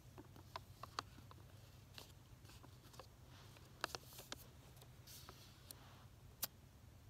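Near silence over a low steady hum, broken by scattered faint clicks and rustles of hands handling small objects; the sharpest clicks come about a second in, a pair near the middle, and one near the end.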